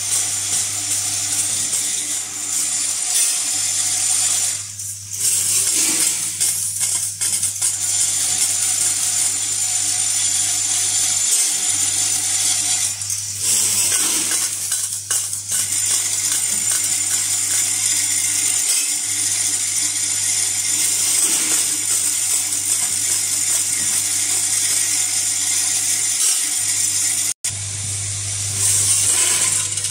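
Vibratory bowl feeders of an automatic fastener counting and packaging machine running: a steady low hum under a dense metallic jingling and rattling of small metal hardware parts being shaken along the feed tracks.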